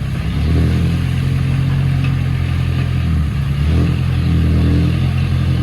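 Heavy diesel engine running hard under load, with a steady, even note. It eases off briefly about two-thirds of the way through, then picks up again.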